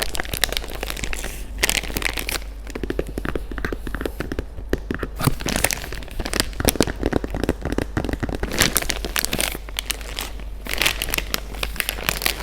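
Close-up crinkling and rustling of plastic packaging, a dense run of irregular crackles and small clicks.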